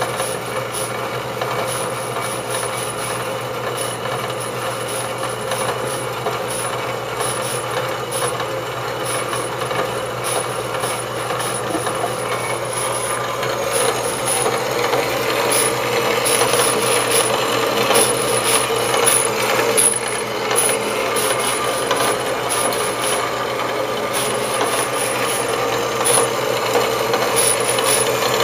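Horizontal metal bandsaw running and cutting through a metal bar. The motor hums steadily under the continuous rasp of the blade's teeth, and the cutting grows louder about halfway through.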